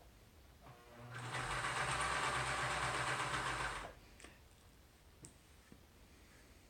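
Electric sewing machine stitching in one run of about three seconds, starting about a second in and stopping abruptly, with a steady motor hum under the needle's rapid chatter. A couple of faint clicks follow.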